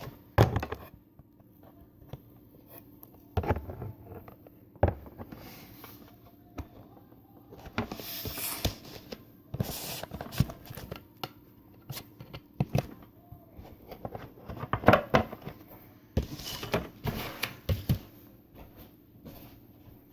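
Slime being squished, stretched and popped in the hands: irregular sharp sticky pops mixed with short wet squishing stretches.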